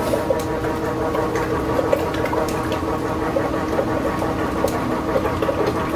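Rice cake extruding machine running with a steady hum as it pushes out strands of garaetteok, with scattered sharp clicks from scissors snipping the strands.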